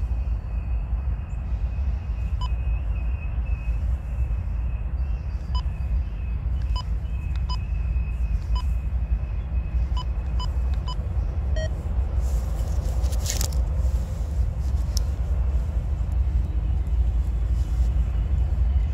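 Wind buffeting the microphone in a steady low rumble, with a few faint short chirps at irregular times and a brief hiss about twelve seconds in.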